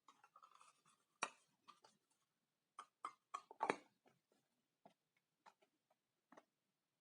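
Faint, irregular clicks and taps from small objects being handled, with light rustling in the first second. The sharpest taps come a little over a second in and about three and a half seconds in.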